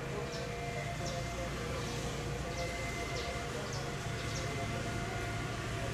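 Steady low rumble of a train at the line, with faint thin tones coming and going and a few light high ticks.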